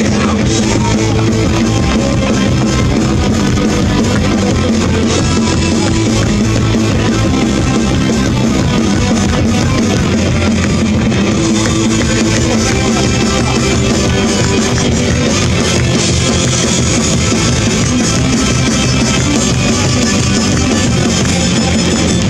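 Live rock band playing loudly through a stage PA: electric guitar and drum kit.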